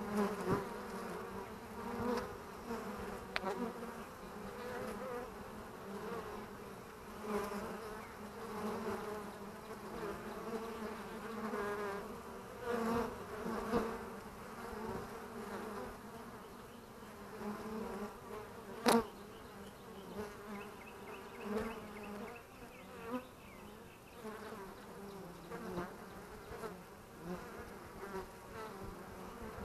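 Honeybees buzzing at the hive entrance as foragers fly in and out, the buzz swelling and fading as single bees pass close by. One sharp click about two-thirds of the way through.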